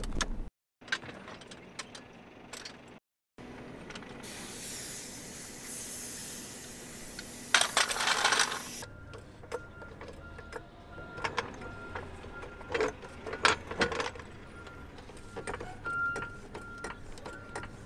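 Steel floor jack being rolled on asphalt and set under a car: a few seconds of noisy scraping hiss that stops suddenly, then scattered metallic clicks and knocks.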